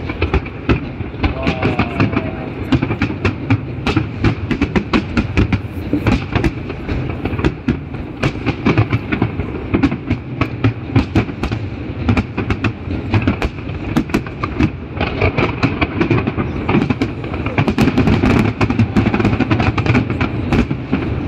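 Fireworks display bursting in a dense, continuous barrage: many rapid bangs and crackles over a steady rumble.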